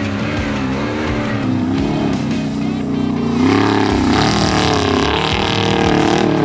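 Off-road race car engine revving hard, its pitch swinging up and down through the gears. It gets louder and fuller about three and a half seconds in as the car comes closer.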